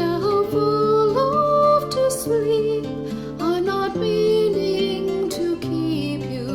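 Slow, gentle folk music: plucked acoustic guitar under a gliding melody line with vibrato, in the manner of a lullaby.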